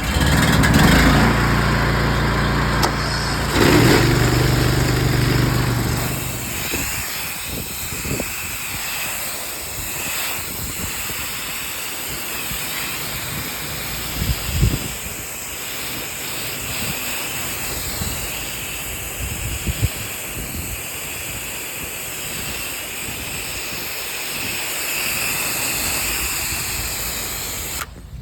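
Pressure-washing rig running while water sprays onto a house: a steady hiss of spray over an engine hum. Both are louder for the first several seconds.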